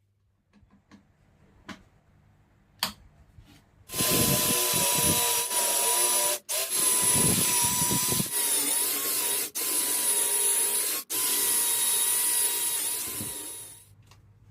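An electric power tool runs with a steady high whine. It breaks off for an instant a few times and winds down near the end. A few faint knocks come before it starts.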